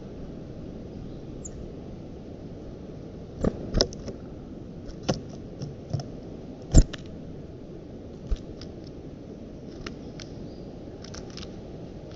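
Small birds picking at the sticks of an eagle's nest close to the microphone: scattered sharp clicks and snaps at uneven intervals, the loudest just past the middle, over a steady low hiss.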